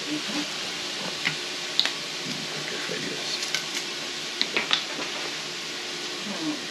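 A few light clicks and taps from a soy sauce bottle being uncapped and a small plastic measuring cup being handled as the sauce is poured, over a steady background hiss.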